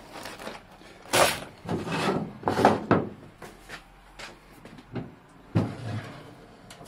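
Triumph TR7 boot lid being opened after about two years shut: a run of loud scraping and knocking noises for about two seconds, then a couple of sharp knocks.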